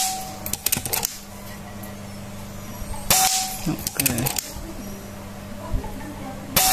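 Suppressed PCP air rifle firing at a metal silhouette target: one shot about three seconds in and another near the end, each a sharp crack followed within a second by a quick run of clicks.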